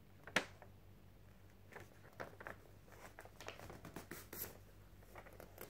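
A sheet of paper is handled and folded in half by hand. There is one crisp snap of the sheet about half a second in, then faint, scattered rustles and creasing.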